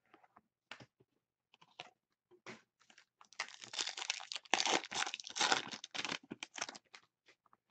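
Foil wrapper of a Panini Prizm basketball card pack being torn open and crinkled. A few scattered light rustles come first, then a dense crackling rustle fills the second half.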